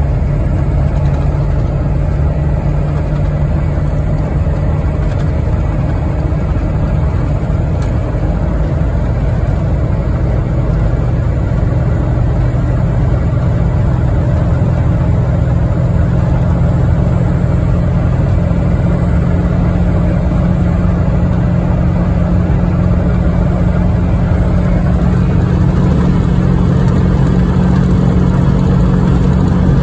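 Ford 7.3 Powerstroke turbo-diesel V8 in a 1996 F350 pulling steadily at highway speed, heard from inside the cab. A steady low engine drone under road noise, growing slightly stronger near the end.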